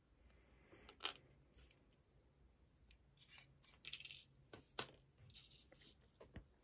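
Small parts of an AAP-01 airsoft pistol clicking and clattering as they are handled and fitted together by hand: two sharp clicks, about a second in and just under five seconds in, with brief rustling and lighter ticks in between.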